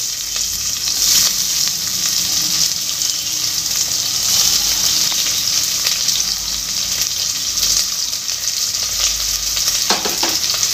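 Sliced onions sizzling in hot oil and ghee in an open aluminium pressure cooker, a steady high hiss as they start to fry.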